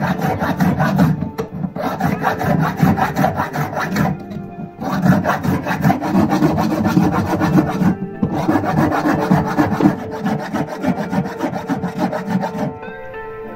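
Hand file rasping across a brass hex nut in quick back-and-forth strokes. The strokes come in runs with brief pauses about two, four and eight seconds in, and stop shortly before the end.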